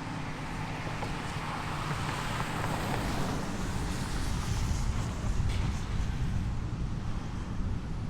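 Demolition machinery engine running steadily with wind on the microphone, and a few faint knocks about five seconds in.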